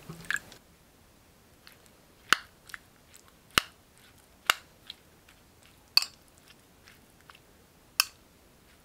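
Metal spoon clinking and scraping against a glass bowl while tomato and salted egg are stirred, in sharp taps at irregular intervals, roughly one a second.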